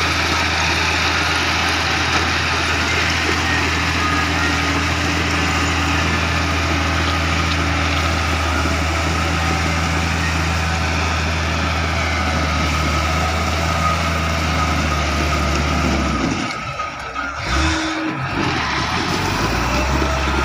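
Komatsu motor grader's diesel engine running steadily under load while its blade pushes and spreads crushed stone, with a constant scraping, grinding noise from the rocks. The engine note drops and breaks up briefly about sixteen seconds in, then settles again near the end.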